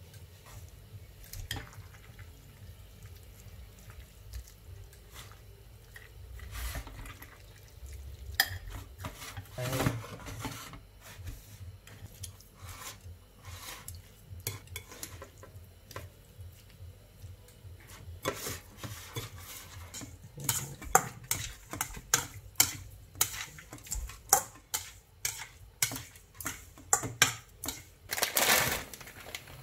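Chopsticks and a metal spoon clinking and scraping against ceramic bowls as sliced beef is tossed in its marinade. The clinks are scattered at first and come thick and fast over the last ten seconds or so, with a brief louder scrape near the end.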